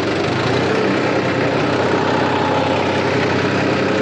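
New Holland tractor's diesel engine running steadily as the tractor is driven in reverse and braked, with no squeal or grinding from the oil-immersed brakes: the noise they made was put down to low, spent transmission oil, now replaced with fresh UTTO oil.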